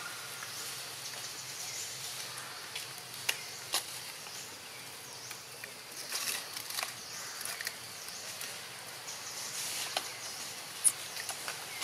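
Steady outdoor hiss with scattered short clicks and rustles, the sharpest click near the end.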